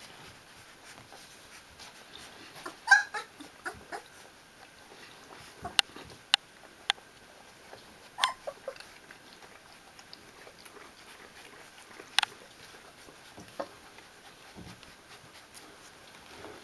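Thirteen-day-old Newfoundland puppies giving short, high, wavering squeaks: a loud one about three seconds in and a smaller one around eight seconds. There are a few sharp clicks in between.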